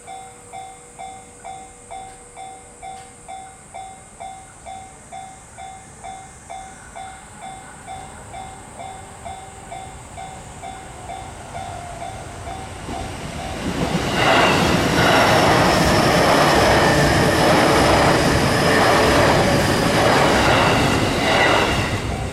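Japanese level-crossing warning bell dinging about twice a second. About fourteen seconds in, a train passes over the crossing loudly for about seven seconds, wheels clattering on the rails, drowning out the bell, which is heard again as the train clears.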